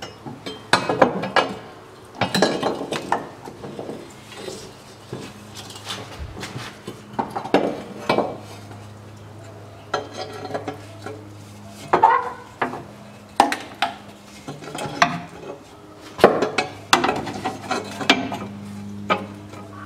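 A steel exhaust front pipe clanking and scraping against the car's underbody as it is worked up into place, with many irregular metallic knocks and clinks over a steady low hum.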